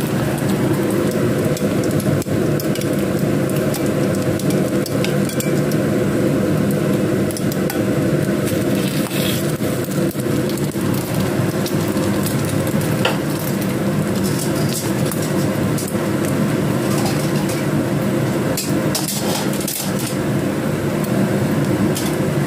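Egg-coated slices of kue keranjang (sweet sticky rice cake) sizzling as they shallow-fry in oil in a nonstick pan, with scattered sharp crackles and pops over a steady low hum.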